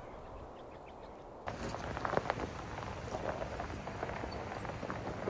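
Pickup truck tyres crunching slowly over a gravel road, a dense run of small crackles and pops from the stones that starts suddenly about a second and a half in.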